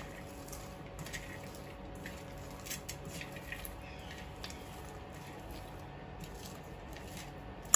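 Sliced red onion being squeezed and crushed by hand in a stainless-steel bowl: faint, scattered squishing and crackling of the onion pieces.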